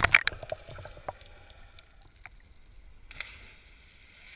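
Water splashing and bubbling against an action camera as it goes under the surface, a dense cluster of sharp splashes that thins out within about a second into muffled underwater quiet. About three seconds in, a steady rushing hiss begins.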